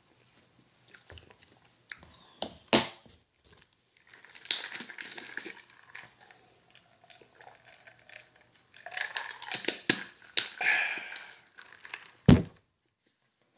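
Tableside eating and drinking sounds: small clicks and clinks, two stretches of rustly drinking and handling noise, a sharp knock about three seconds in and a louder knock near the end as a cup or bottle meets the table.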